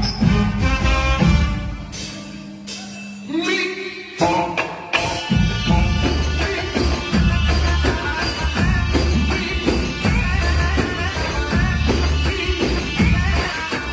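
A song sung by a male singer over a heavy bass beat; about two seconds in the beat drops out, leaving a held note, and it comes back in about two seconds later.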